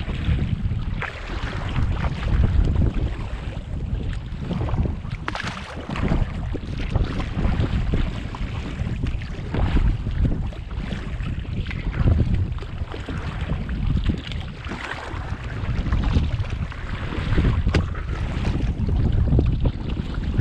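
Gusty wind buffeting the microphone with an uneven low rumble, over water splashing around a kayak on open water.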